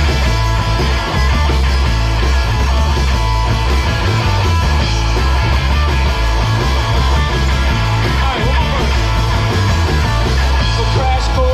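Live punk-rock band playing loudly: distorted electric guitars over a heavy, pulsing bass line and drums.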